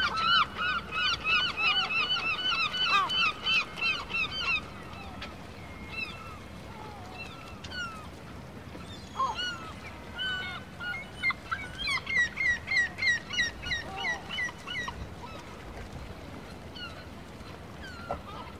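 Birds calling: two bouts of rapid, repeated high cries, one at the start and one around the middle, with scattered single calls between.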